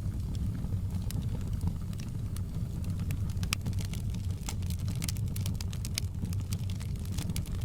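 Fireplace burning: a steady low rumble of flames with irregular sharp crackles and pops from the burning wood.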